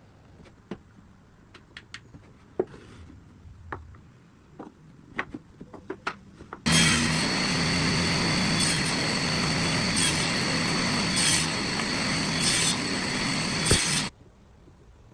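Several sharp clicks and knocks of wood and tools being handled, then a power tool runs steadily for about seven seconds with a high whine over a low hum, starting and cutting off abruptly.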